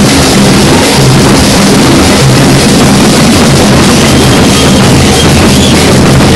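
Several rope-tensioned wooden bass drums (alfaias) pounded together with wooden sticks in a dense, steady ensemble beat. The recording is close and loud enough to distort.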